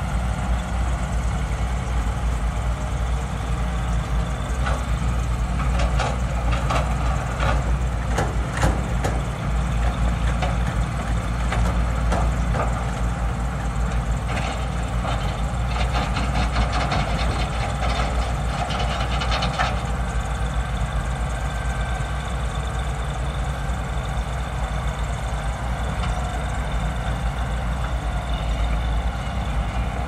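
Heavy diesel engines of Caterpillar 320C tracked excavators running steadily under digging load. From about six seconds in, the clatter of rock and soil knocking against the digging buckets comes through, growing dense and then stopping suddenly about twenty seconds in.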